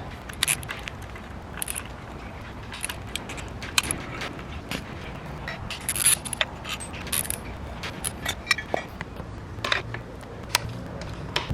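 Metal hand tools and engine parts clinking and scraping: an irregular series of short, sharp clicks and clanks.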